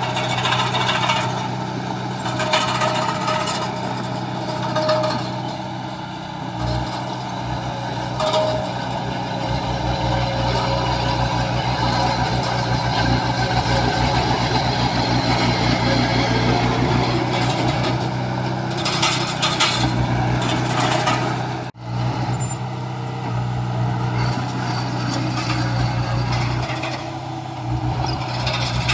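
Heavy diesel engines of construction machinery running steadily with a low hum, cutting out for an instant about three-quarters of the way through.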